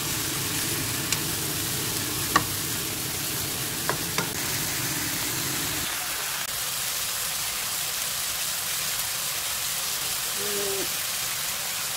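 Vegetables and oyster mushrooms sizzling as they stir-fry in oil in a pan, while a wooden spatula turns them and knocks against the pan a few times in the first few seconds. From about halfway on, only the steady sizzle is left.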